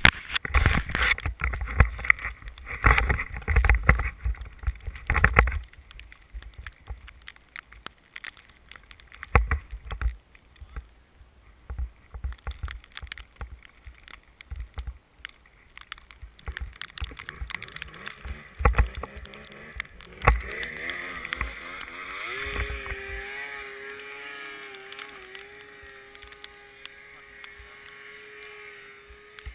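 Thumps and knocks on a helmet camera's microphone for the first few seconds, then scattered knocks. About two-thirds of the way through, a snowmobile engine comes up with a rising, wavering pitch and settles into a steady running note.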